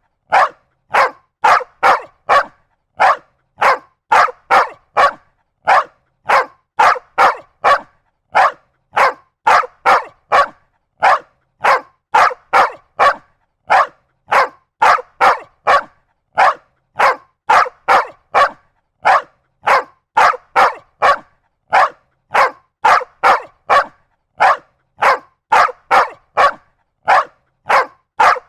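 A dog barking repeatedly in short, sharp barks, often two to four in quick succession with brief pauses between the runs.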